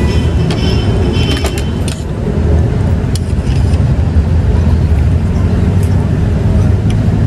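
Steady rumble of passing road traffic, with a few light metal clinks of a spoon against a bowl and skewer in the first two seconds.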